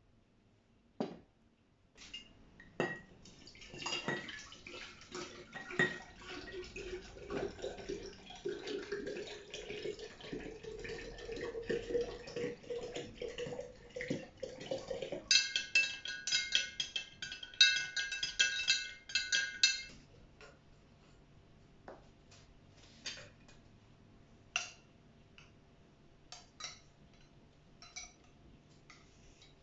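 Water poured into a glass jar, its pitch rising steadily as the jar fills. Then, for about five seconds, rapid ringing clinks of a spoon against the glass, loudest of all, followed by a few light clicks and knocks.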